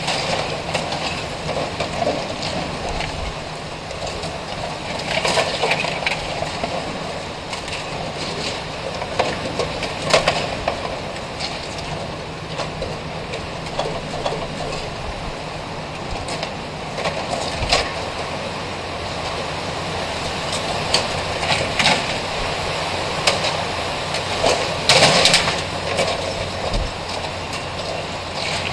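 Hurricane-force wind blowing steadily while a torn corrugated sheet-metal awning rattles and bangs against the building wall at irregular moments, loudest about three-quarters of the way through.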